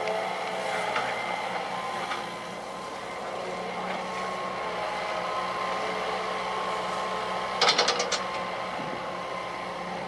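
Hitachi EX120 excavator's diesel engine running under load, with a steady hydraulic whine as the machine swings and dumps soil from its bucket. A quick run of sharp knocks comes about three-quarters of the way through.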